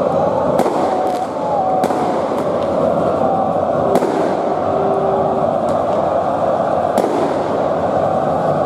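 Large crowd of football ultras chanting and shouting in the stand, with sharp firecracker bangs going off irregularly, about one a second.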